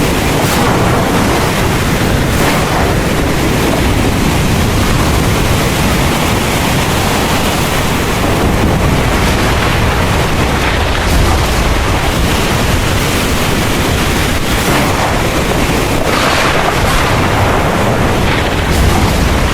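Heavy rain pouring steadily, with a low rumble of thunder underneath.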